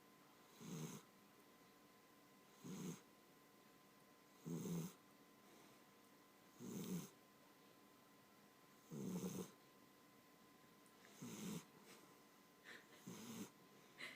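A sleeping pet snoring softly, one snore about every two seconds, each about half a second long; the last few near the end come shorter and more broken.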